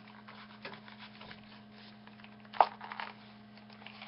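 Faint rustling and small clicks of a plastic toy chest badge being worked loose from a t-shirt, with one sharp click about two and a half seconds in. A faint steady hum runs underneath.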